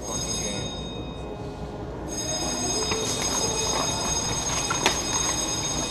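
Steady rumbling noise of an indoor airsoft arena with a high-pitched whine that grows louder about two seconds in, and one sharp click about five seconds in.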